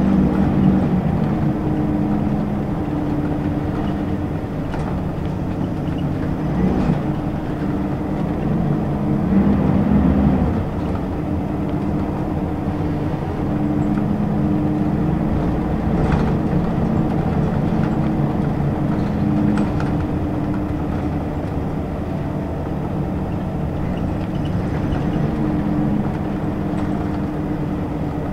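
Scania L94UB city bus's diesel engine and ZF automatic transmission running steadily, heard from inside the cabin. The engine's pitch rises and falls a little as the bus pulls along at low speed, with a brief knock about sixteen seconds in.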